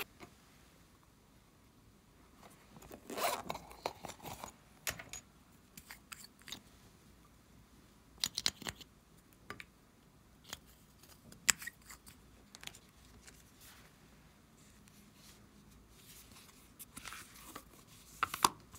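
Quiet, scattered rustles, crinkles and clicks of hands squeezing plastic piping bags of soft clay onto slime, with sharper plastic clicks near the end as an eyeshadow palette's case is handled.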